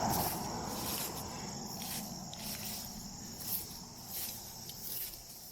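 Insect chorus: steady, rapidly pulsing high-pitched chirping, with the noise of a vehicle on the road fading away over the first second.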